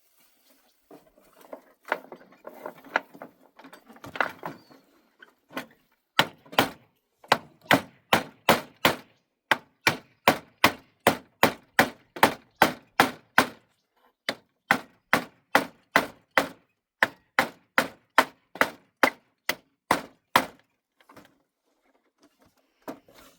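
A hand tool striking wood in a steady rhythm, a little over two sharp blows a second. The blows begin about six seconds in, after a few seconds of scraping and rustling, and stop a few seconds before the end.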